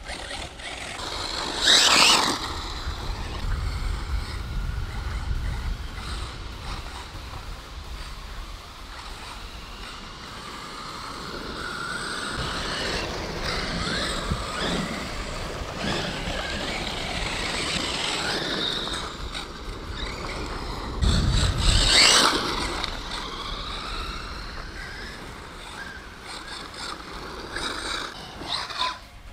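Radio-controlled cars driving on a dirt track, their motors whining up and down in pitch as they speed up and slow, over the rush of tyres on dirt. Two brief loud bursts of noise come about two seconds in and about twenty-two seconds in.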